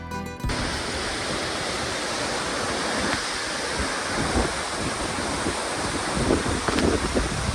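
The last half-second of guitar music, then a steady outdoor rushing noise with wind buffeting the microphone in low thumps.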